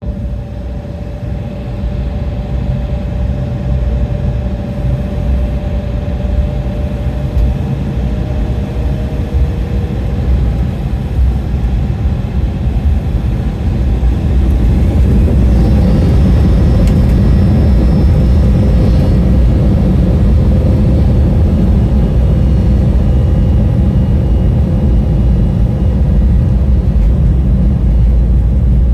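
Embraer E170's General Electric CF34-8E turbofans heard from inside the cabin: a deep rumble and engine noise growing louder over the first half, then holding steady, with a thin high whine entering about halfway, as the engines build thrust for takeoff.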